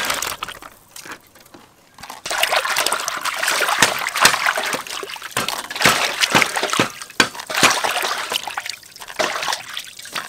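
Hands splashing and sloshing tofu cubes around in a large steel basin of water, washing them, with water dribbling as the cubes are scooped into a plastic basket. Irregular splashes start about two seconds in after a brief lull.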